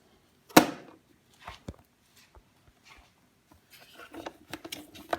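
Lid of a Bosch CompactClass Extra drip coffee maker being closed, with one sharp clack about half a second in, followed by scattered light clicks and knocks as the machine is handled.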